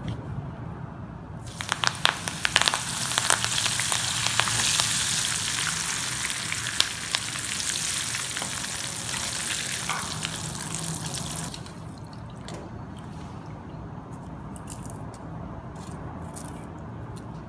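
Fresh curry leaves dropped into hot oil: a sudden loud sizzle full of crackling spatters starts about a second and a half in, then eases off over the next ten seconds as the leaves crisp, dropping to a faint sizzle with scattered pops.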